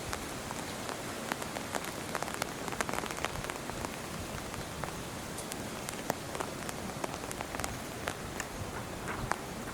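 Rain falling on a surface: a steady hiss with many small, irregular taps.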